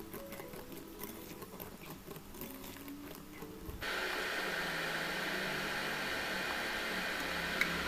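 Faint soft handling sounds, then about four seconds in a steady hiss sets in abruptly and holds while flour is dry-toasted and stirred in a stainless steel pan on the stove.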